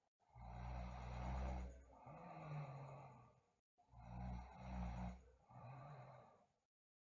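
A sleeping girl snoring: two snoring breaths about three seconds apart, each a loud low buzz that trails off into a softer, breathier part.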